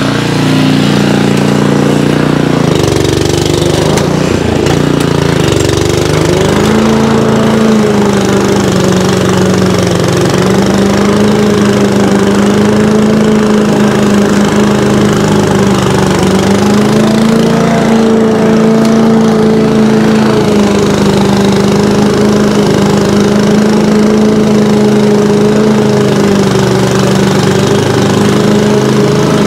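Honda HRU 216 commercial petrol lawn mower's four-stroke engine running steadily under load while cutting long, overgrown grass, its note wavering slightly as the load changes.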